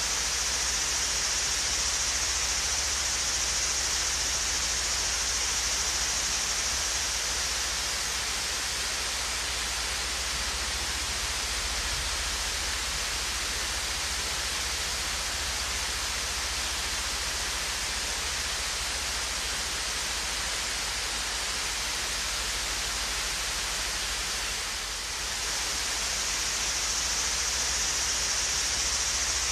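Swayze Falls waterfall: water falling and rushing in a steady, even hiss, brightest in the high range, with a brief dip in loudness near the end.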